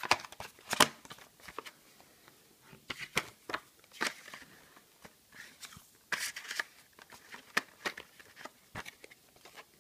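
Box packaging being handled: scattered sharp clicks and short rustles of cardboard and plastic at irregular intervals.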